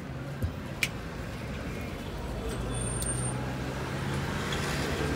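Street traffic noise: a steady low rumble of passing cars and buses. A couple of sharp clicks sound in the first second, and a steady low engine hum joins in about halfway through.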